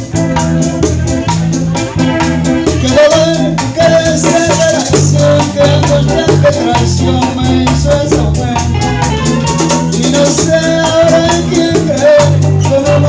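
Live bachata band playing an instrumental introduction: guitar melody over a moving bass line and drums, with a güira scraping a fast, steady rhythm.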